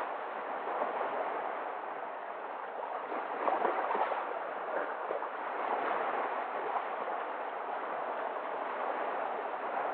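Sea waves washing in: a steady rush of water that swells a little about three and a half seconds in.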